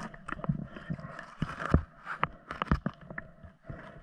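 Irregular knocks, clunks and scrapes heard underwater through the camera housing as a speared pike is handled on the spear shaft, loudest in a cluster of knocks between about one and three seconds in.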